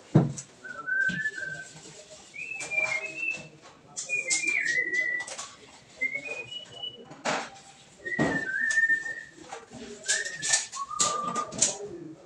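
A person whistling a tune in short phrases, the notes stepping up and down, over clicks and knocks as a ceiling panel is handled and pushed into place. A thump comes right at the start, as he steps up onto a plastic bucket.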